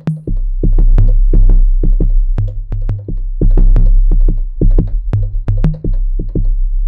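Drum-machine one-shots triggered from Maschine pads in a quick run of sharp hits, several a second, over a deep sustained 808 bass that comes in just after the start.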